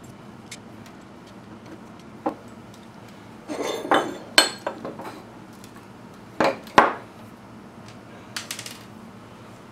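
Machined aluminium parts being handled and set down on a wooden benchtop: scattered knocks and clinks, with two sharp knocks about two-thirds of the way through and a few light clinks near the end.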